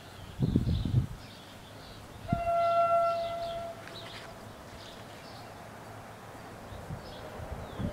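Train horn sounding one steady blast of about a second and a half, about two seconds in, from a train approaching the level crossing. A short low rumble comes just before it.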